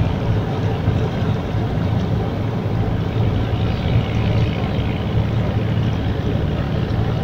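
Steady low drone of a motorboat engine running on the river, holding an even pitch throughout.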